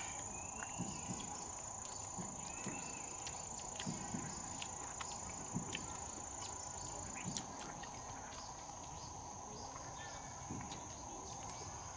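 Insects singing: a steady high-pitched tone, over faint scattered clicks and rustles.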